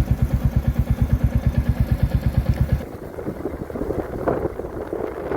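Motorcycle engine idling with an even, heavy beat of about ten pulses a second. A little under three seconds in, the beat stops and a rougher, noisier rush takes over.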